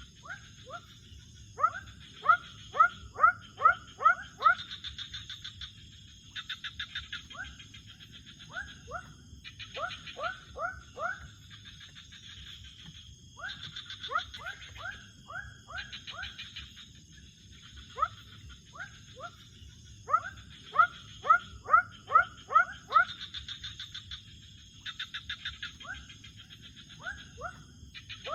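Night-time chorus of calling animals: series of four to six short rising chirps, about three a second, repeat every few seconds over pulsing trills and a steady high ringing. A low rushing noise runs underneath.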